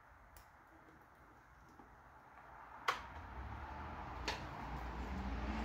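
Sharp clicks of wiring-harness connectors being pushed onto their terminals, one loud click about three seconds in and a smaller one a second or so later, over quiet handling noise.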